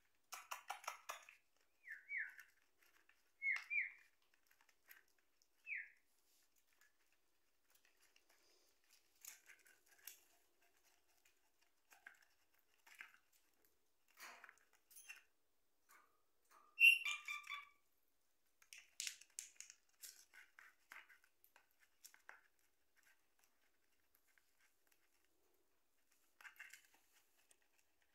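Small pet parrots giving a few short, falling chirps, with one louder burst of chirps a little past halfway, over faint scattered scratchy clicks of a beak nibbling and shredding cardboard.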